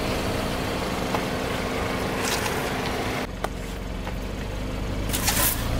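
Car engine running slowly with a steady hum as it creeps over the pavement. About three seconds in, the sound cuts abruptly to a quieter low drone, with a single click soon after and a short hissing burst near the end.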